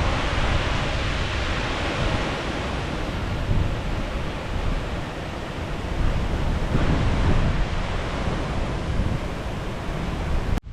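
Hurricane Ian's storm wind blowing hard, buffeting the microphone in a steady roar that surges in gusts about three and a half and seven seconds in. It ends in a sudden cut.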